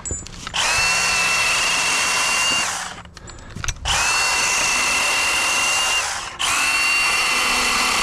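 Milwaukee M18 Fuel Hatchet battery pruning saw running in three bursts of about two and a half seconds each. Each burst starts with a short rising whine, then holds a steady pitch.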